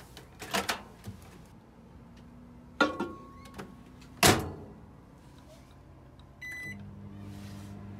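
Microwave oven door clicking and knocking, then shut with a loud clunk about four seconds in. Near the end a single short beep from its keypad, and the oven starts running with a steady low hum.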